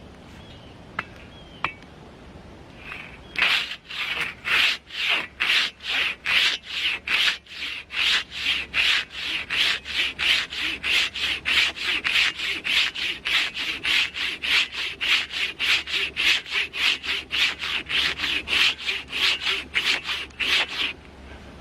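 Giant folding hand saw cutting through a log with fast back-and-forth strokes, a coarse rasp of the big teeth on each stroke at about three a second. The sawing starts a few seconds in and stops just before the end.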